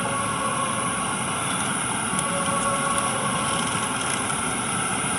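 Steady road noise of a car driving, with faint humming tones that come and go.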